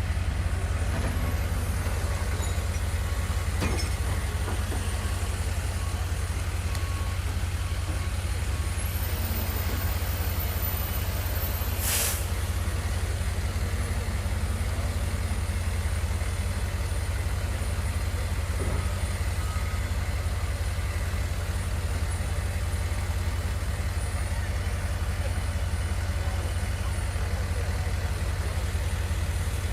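Steady low rumble of vehicle engines in the street, with a single sharp click about twelve seconds in.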